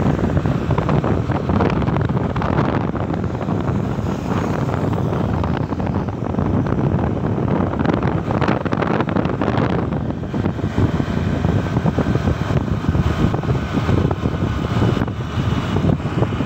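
Wind rushing over the phone's microphone together with engine and road noise from a car driving along a highway, a steady loud rumble that flutters with gusts.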